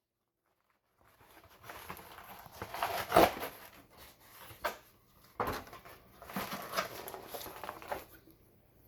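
Rustling and scraping handling noise with a few sharp knocks, starting about a second in, as a 9-inch concrete saw blade is lifted out of its packaging.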